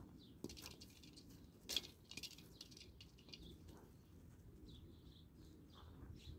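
Faint scuffing and crunching of puppies' paws on gravel as they tussle, with a few faint high chirps and one sharp tap about two seconds in.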